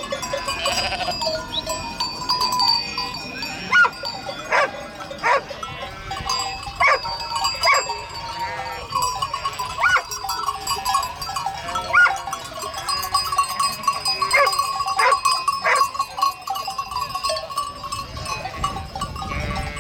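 Flock of sheep bleating, many short calls overlapping throughout, over the steady ringing of livestock bells.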